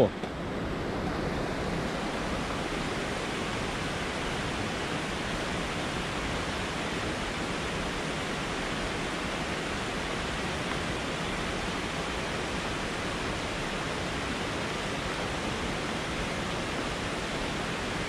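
Steady rush of a mountain river's water, an even, unbroken roar.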